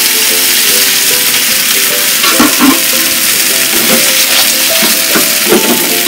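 Clams sizzling in chicken stock in a hot frying pan, a steady hiss as the liquid cooks down. A few short knocks and clinks as the shells are moved in the pan, the loudest about two and a half seconds in.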